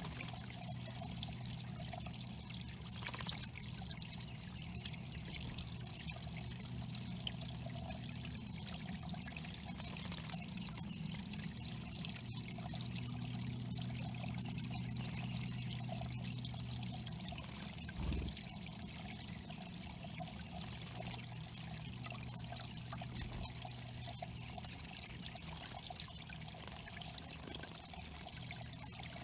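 Water trickling and splashing steadily into a small backyard pond, with a steady low hum underneath.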